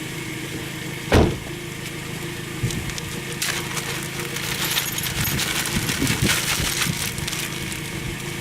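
Tire chain links clinking and rattling as a rubber chain tensioner is stretched and hooked onto the chain, with one sharp knock about a second in. A vehicle engine idles steadily underneath.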